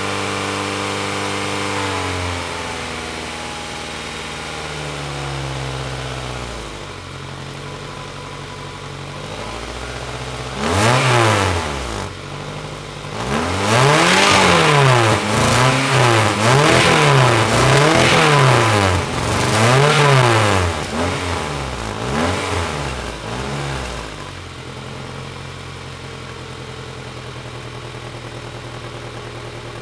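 A Honda H22A 2.2-litre VTEC four-cylinder in a 1995 Civic, still warming up after the day's first cold start. Its idle eases down over the first few seconds, then the engine is revved in a string of quick blips, about eight, before it settles back to a steady idle near the end.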